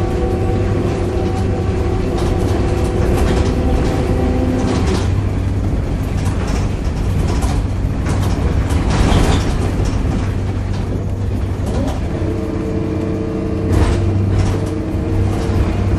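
Volvo B7RLE single-decker bus heard from on board while driving: its seven-litre diesel drones low with rattles and knocks over it. A steady pitched groan sounds for the first few seconds, drops away into a rougher noisier stretch, and comes back from about twelve seconds in.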